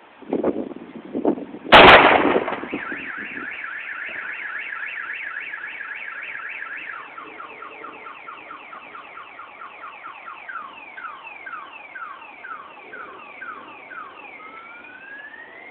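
Two dull pops, then a loud explosion from the burning truck about two seconds in. Right after the blast a car alarm starts sounding, cycling through rapid chirps, then slower falling sweeps, then rising whoops near the end.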